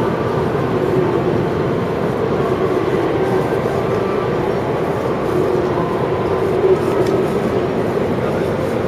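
Steady railway station din: a continuous rumble with a wavering hum and no distinct events.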